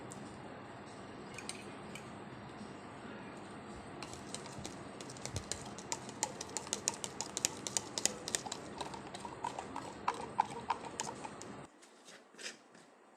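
Quick, irregular clicking and tapping of kitchen utensils, several clicks a second, some with a light ringing note, starting about four seconds in over a steady hiss that cuts off abruptly near the end.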